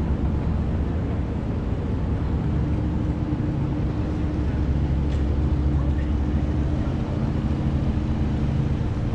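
A boat's engine running steadily at the pier, a low drone with a steady hum in it, with some wind on the microphone.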